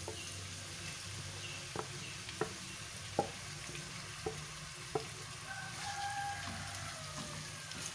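Raw minced meat sizzling in hot oil in a pot as it is stirred and broken up with a wooden spatula, which knocks sharply against the pot several times.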